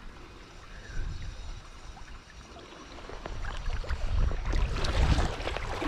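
Shallow seawater sloshing and lapping around a wader's legs, growing louder about four seconds in.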